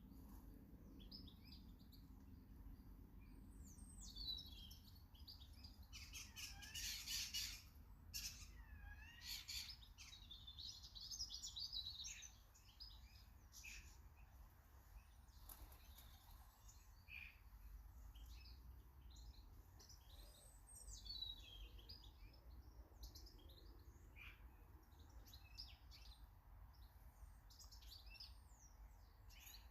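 Faint garden birdsong, with many short chirps, twittering calls and song phrases. They are busiest about six to twelve seconds in, over a low steady rumble.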